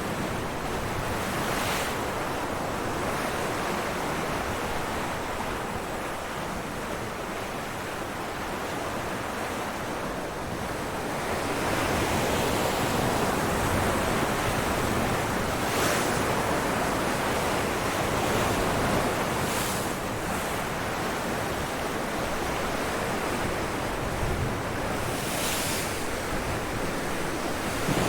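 Ocean waves breaking on rocks, a continuous rushing wash of surf that swells louder for several seconds in the middle, with brief splashes here and there. Wind on the microphone adds a rumble.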